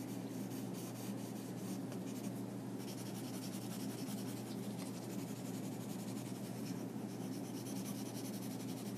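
Graphite pencil scratching on paper in many quick, light strokes, drawing along the contour lines of a sketch.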